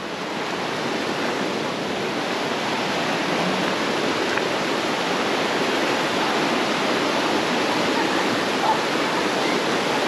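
Steady rushing of a rocky mountain stream, growing a little louder over the first few seconds.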